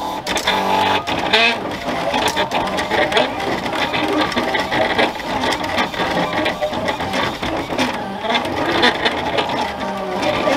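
Silhouette Cameo 3 vinyl cutter running a cut job on adhesive vinyl: its motors whir in short runs that keep changing pitch as the blade carriage moves across and the cutting mat is fed back and forth.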